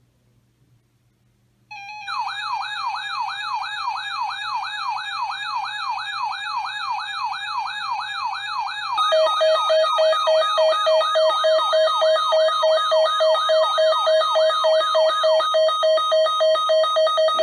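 Electronic siren starting up abruptly, yelping with quick rising sweeps about three times a second; about nine seconds in, a louder steady tone pulsing several times a second joins it.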